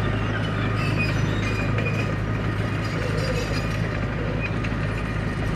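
Komatsu D31P crawler bulldozer running with a steady diesel engine drone, with short high squeaks and clinks from its steel tracks.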